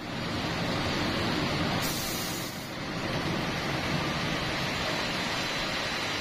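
Open-drive reciprocating refrigeration compressor of an air blast freezer and its electric motor running: a loud, steady machinery noise, with a short rise of hiss about two seconds in.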